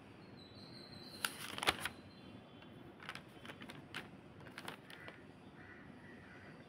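Faint background hiss broken by a handful of short, sharp clicks, the loudest pair about a second and a half in.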